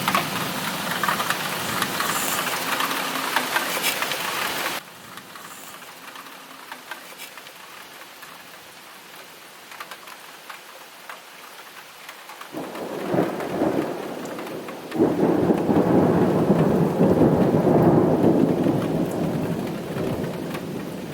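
Thunderstorm: steady heavy rain, which drops suddenly to a quieter rain about five seconds in. Thunder starts rumbling around twelve seconds in and rolls loud and low through most of the last six seconds.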